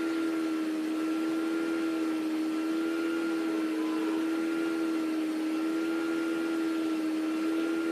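A steady machine hum with hiss: one low pitch held evenly, with a fainter high whine above it.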